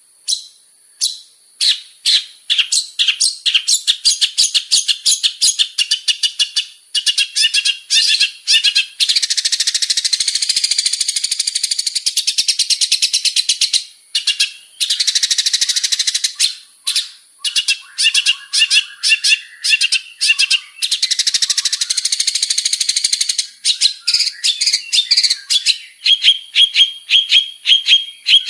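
Male long-tailed shrike (cendet) in full song: fast streams of sharp, chattering notes broken by several long unbroken warbling runs, and a row of quick repeated calls near the end. The song is varied and full of imitated calls.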